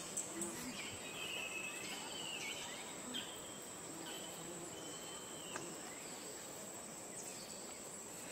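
Steady high-pitched drone of forest insects, with a few short whistled calls that fall in pitch in the first few seconds.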